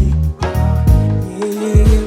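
Live band playing an R&B groove, with a beat and bass under sustained chords, between the singer's lines.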